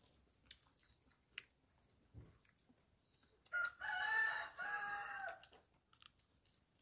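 A rooster crows once, a drawn-out call of about two seconds that starts about three and a half seconds in. Faint clicks of chewing and handling food are heard around it.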